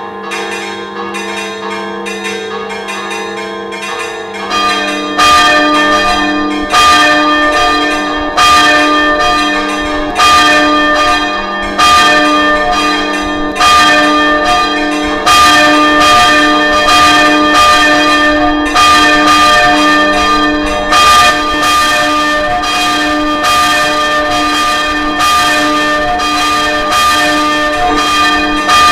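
Church tower bells ringing, stroke after stroke over a lasting hum of overlapping tones. About five seconds in the ringing gets louder, with a strong stroke roughly every second and a half.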